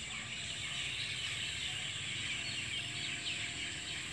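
Many small birds chirping at once in a dense, continuous chorus over steady outdoor background noise.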